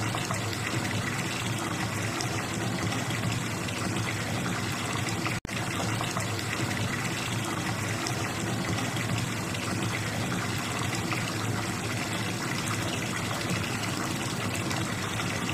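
Water running steadily from a bathtub tap into a filling tub, an even rush that briefly cuts out about five seconds in.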